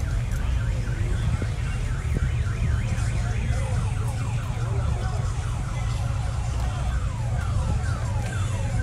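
A car alarm sounding, cycling from a fast up-and-down warble into a run of falling whoops, about one to two a second, over a steady low rumble.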